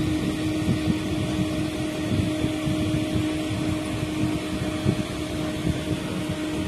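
Steady mechanical hum of a machine running in the background, a constant low tone over a low rumble that does not change.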